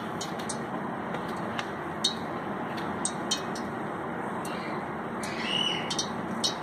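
Spring roll pastry strips being handled and laid on a plate: a few light clicks and taps over a steady background noise, with a brief high gliding tone a little over five seconds in.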